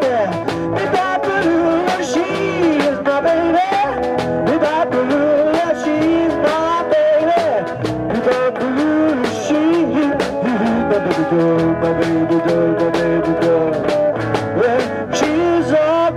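Live rock-and-roll band playing an instrumental section: electric guitars, bass guitar and drum kit keeping a steady beat, with a lead line that bends and slides in pitch, played on a blues harmonica cupped against the vocal microphone.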